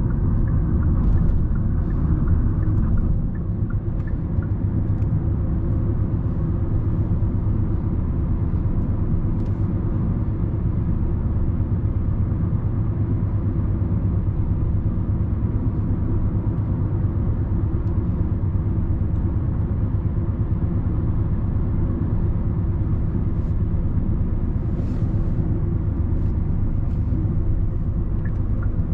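Steady low rumble of road and engine noise heard inside the cabin of a 2020 Hyundai Sonata driving along, a little louder in the first few seconds.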